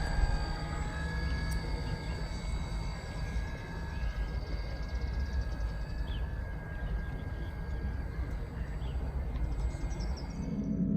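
An eFoil electric hydrofoil surfboard's motor running, a faint steady whine over low wind-like rumble, with a few faint bird chirps in the middle. Near the end a low hum comes in and grows louder.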